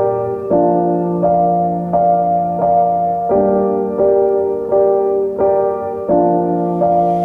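Background music: a piano or electric keyboard playing a slow, evenly paced chord pattern, a new note or chord struck about every three quarters of a second.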